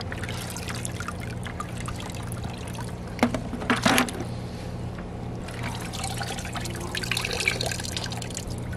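Cloudy maceration water sloshing in a plastic bucket as a gloved hand works over a wolf skull, with a couple of knocks about three to four seconds in. Near the end, water trickles and drips back into the bucket as the skull is lifted out. A steady low hum runs underneath.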